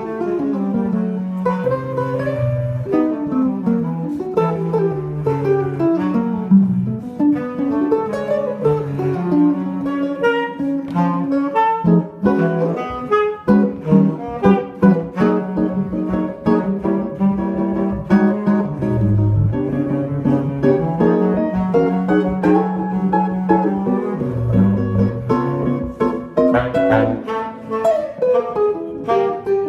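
Tenor saxophone and archtop jazz guitar playing as a duo: the saxophone carries a melodic line while the guitar accompanies with chords and moving low notes.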